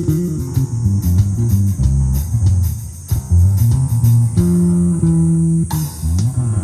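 Live jazz combo playing, with the bass carrying a prominent low melodic line over drum cymbals; near the end the bass slides between notes.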